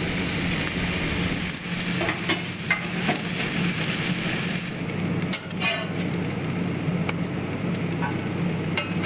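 Bacon strips and butter-soaked French toast sizzling steadily on a hot cast-iron plancha, with short pops of spitting fat. Near the end a metal spatula scrapes under a slice of toast.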